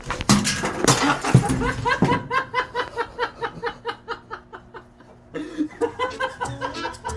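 A man laughing hard in a fast, rhythmic run of 'ha-ha' pulses that trails off after about four seconds. Near the end, music begins.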